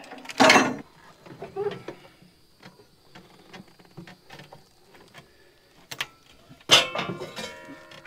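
Metal dash cover panels of a bulldozer being handled and fitted back together: a loud scrape about half a second in, light clicks and taps, then a metal clank near the end that rings briefly.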